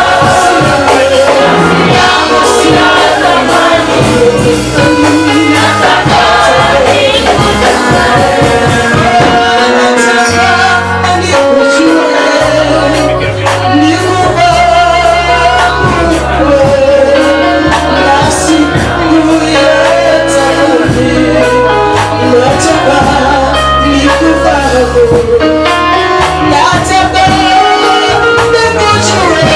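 Gospel worship song: a group of singers over a band with a low bass line and percussion, loud and unbroken.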